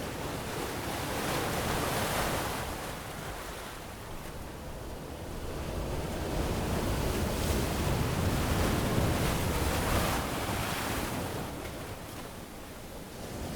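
Ocean surf washing onto a sandy tropical beach, a steady hiss of water that swells with each wave and eases off between them, the longest swell running from about six to eleven seconds in.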